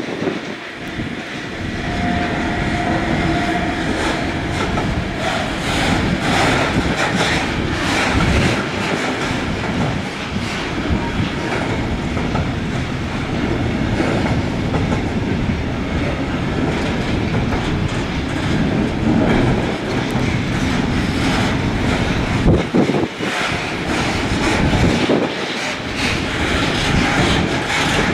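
Freight train passing over a level crossing, its wheels and wagons clattering steadily over the rails.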